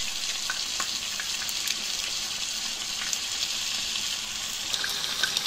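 Frozen chicken pieces sizzling in hot oil in a karahi: a steady hiss with a few small scattered pops.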